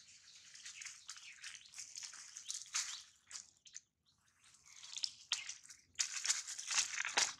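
Dry fallen leaves crackling and rustling in uneven spurts as a baby monkey crawls over them, loudest about six seconds in.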